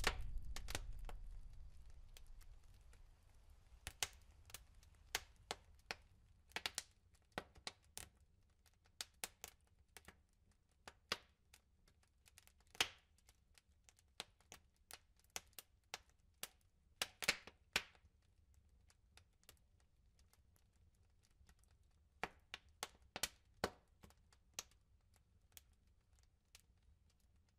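A low rumble fades away over the first couple of seconds. After it come faint, irregular sharp crackles and clicks, sometimes several in quick succession, with quiet gaps between.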